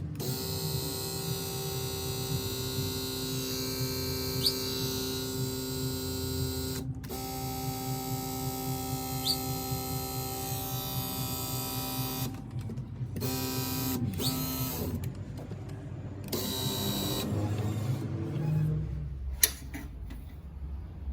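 BMW E39 electric seat motors running: a steady whine in two long runs of about five seconds each, then a few short runs of about a second, each stopping abruptly, as the power seat is driven back and forth. A sharp click near the end.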